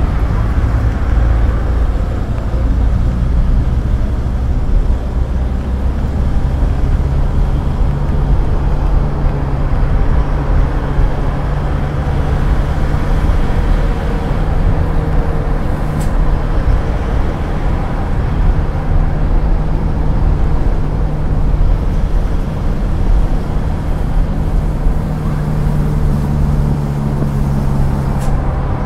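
A car's engine and road noise heard from the moving car: a steady, loud low hum with passing traffic.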